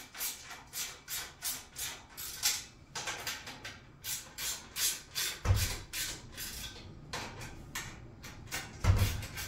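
Bolts on the steel base of a freestanding pull-up bar being tightened with a hand wrench: a steady run of short sharp clicks, about three a second, with a dull thump about halfway through and another near the end.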